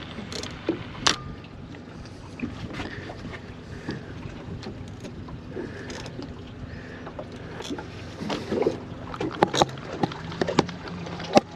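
Small fishing boat sitting on open water: a steady low hum and wash under scattered sharp clicks and knocks, which come thicker from about eight seconds in.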